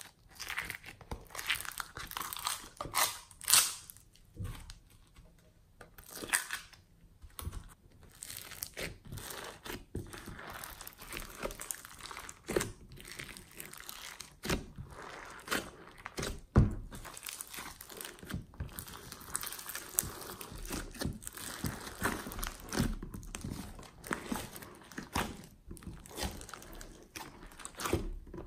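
Foam-bead clay and glossy slime being pressed, folded and stretched by hand in a glass dish: irregular crunching and crackling of the foam beads with squishing slime, and a few louder sharp pops.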